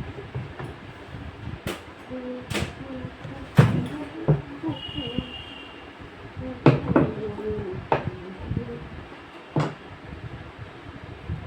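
A series of irregular sharp knocks and clunks, about eight in all, the loudest a little over a third of the way in and again past halfway.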